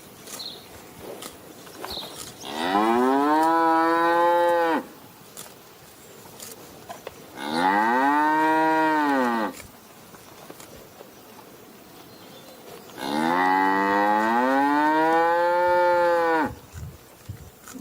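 Cow mooing three times, each a long call that rises and then falls in pitch, the last one the longest. Faint clicks between the calls.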